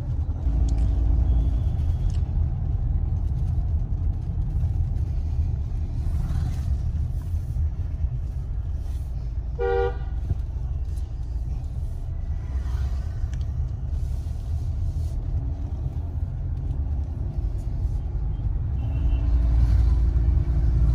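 Steady low road and engine rumble inside a moving car's cabin, with vehicle horns sounding on the street outside. One short, clear horn toot comes about ten seconds in.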